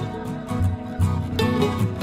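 Instrumental background music with a regular beat and a low bass line.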